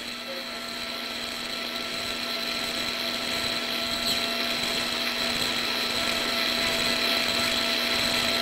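High-speed otologic surgical drill running a burr on mastoid bone, a steady high whine over a hiss that grows gradually louder, as the lateral semicircular canal is drilled open.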